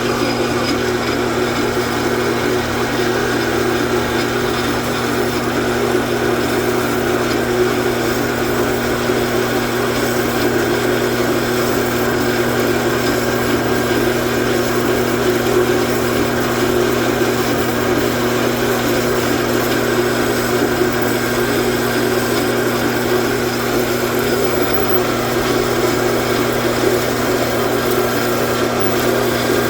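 Metal lathe running steadily, its motor and gearing humming without change, while it takes a cut on power feed.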